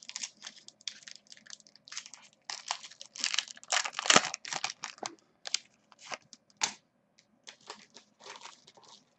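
Trading cards and their wrapping handled at close range: irregular crinkling and rustling, a quick run of short crackles that is loudest about four seconds in.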